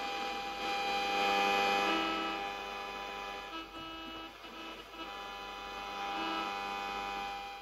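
Music playing through the boombox's speaker from its added Bluetooth receiver: sustained chords with a low note that comes and goes. It starts abruptly and cuts off suddenly near the end as the Bluetooth audio drops out.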